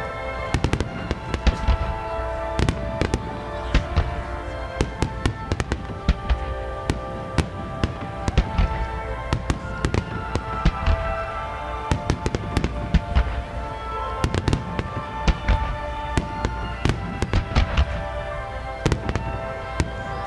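Music starmine fireworks: many shells bursting in quick, irregular volleys, some in rapid clusters, over music played on loudspeakers and timed to the bursts.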